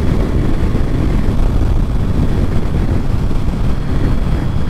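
Steady wind rush over the microphone with the low rumble of a Yamaha VMAX 1700 motorcycle cruising at about 70 mph on the highway.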